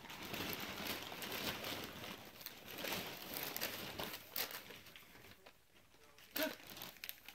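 Wrapping paper crinkling and tearing as a small dog rips open a present with its teeth. The rustling is busiest in the first four seconds, then turns fainter, with a couple of short sharp rustles near the end.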